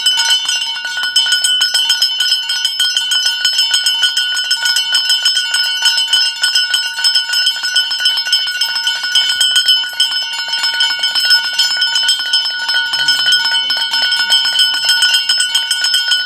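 A metal bell rung rapidly and without pause: a dense run of strikes over steady ringing tones.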